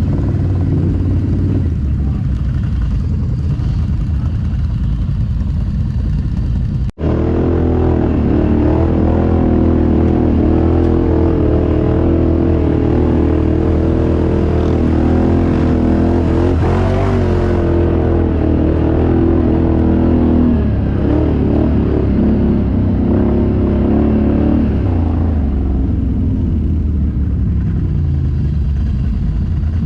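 ATV engine running at fairly steady revs, with an abrupt cut about seven seconds in, after which it runs fuller and steadier and then eases off near the end.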